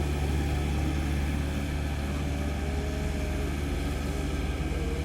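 Komatsu PC130F excavator's diesel engine running steadily, with a fainter wavering higher tone above the low engine drone.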